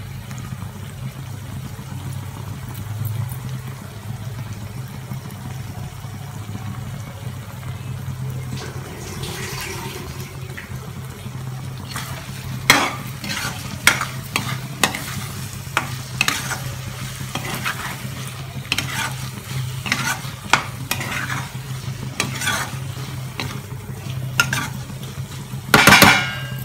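A spatula stirs paneer and capsicum frying in a kadai, making sharp scrapes against the pan about once a second from about halfway in, over a steady low hum. Near the end there is one short, loud rush as salt is sprinkled into the pan.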